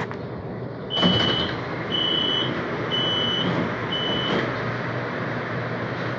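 Metro train doors opening: four steady high beeps, about a second apart, sound over the carriage's steady running noise, starting with a burst of noise as the doors move.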